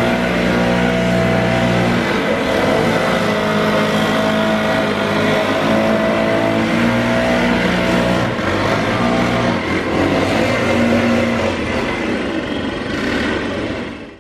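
Engine running steadily, with several layered tones that shift a little in pitch, then cutting off abruptly at the end.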